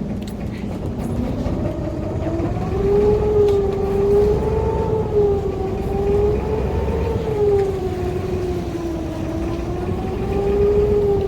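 Sampan's motor running with a steady low rumble and a whining note that slowly rises and falls every couple of seconds.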